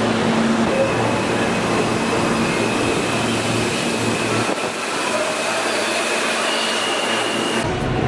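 New York City subway train running beside the platform: a steady loud rush of wheels and motors with a thin high whine over it. Near the end the sound changes abruptly to the ride inside a subway car.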